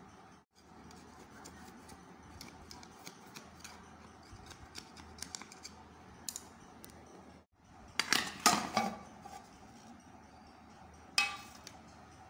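Kitchen handling noise: scattered light clicks, then a loud burst of sharp metallic clattering about 8 seconds in and a shorter one near the end, like metal utensils knocking against metal.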